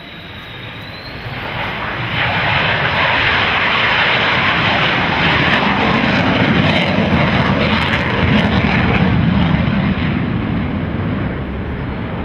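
Fighter jet's engine noise during a display flypast. It builds over the first two seconds, stays loud and steady, and eases slightly near the end.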